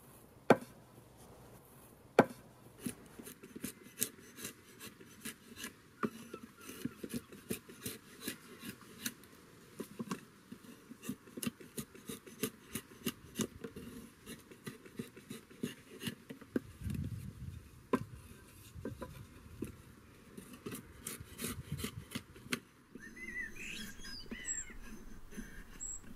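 Drawknife shaving green walnut wood on a shaving horse: a run of short scraping cuts, with two loud knocks in the first few seconds.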